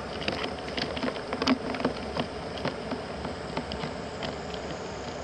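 Japanese mitten crab's legs and claws clicking and scraping on the side of a plastic bucket: irregular small clicks, busiest in the first two seconds, over a steady hiss.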